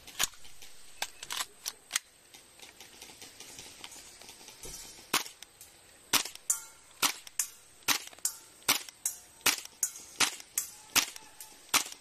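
Tokyo Marui M4 gas blowback airsoft rifle firing semi-automatic, each shot a sharp pop with the bolt cycling. A few scattered shots come first, then from about five seconds a steady string of roughly two to three shots a second. The rifle was spitting raw liquid gas as it cycled, which the uploader puts down to the high humidity.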